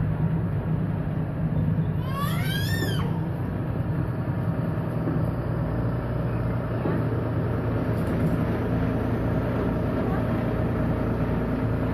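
Farm tractor engine running steadily while it tows a passenger trailer at low speed. About two seconds in there is a short, rising, high-pitched squeal.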